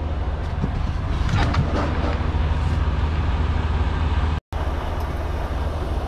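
Semi-truck diesel engine idling with a steady low rumble, with a few light knocks and rustles as a person climbs up into the cab. The sound drops out for an instant about four and a half seconds in.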